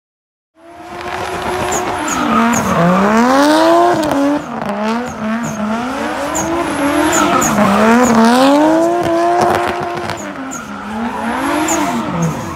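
A drift car's engine revving hard while its rear tyres spin and squeal in a smoky sideways slide. The engine note drops and climbs back again several times, every second or two, over a steady hiss of tyre screech. The sound starts suddenly about half a second in.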